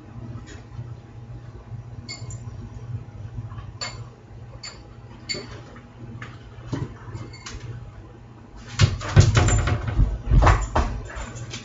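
A large dog scrabbling on a kitchen counter and refrigerator top: scattered light clicks and ticks at first, then a burst of heavy thumps and clatter about nine seconds in as it clambers down off the counter.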